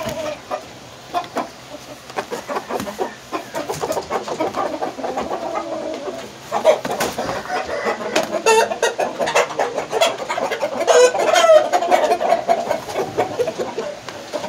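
Roosters clucking in a quick, dense run of short calls, louder from about halfway through, with a brief higher call about eleven seconds in.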